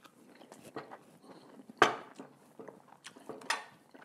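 A man biting and chewing a mouthful of Italian sub on a crusty roll: scattered wet mouth clicks and crackles, with two louder crunches, one about two seconds in and one near the end.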